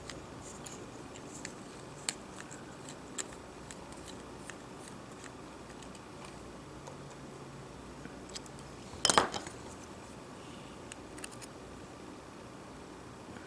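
Light metallic ticks and clicks of a precision screwdriver working tiny screws on an iPhone 6 Plus's internal brackets, with a louder metallic clatter about nine seconds in.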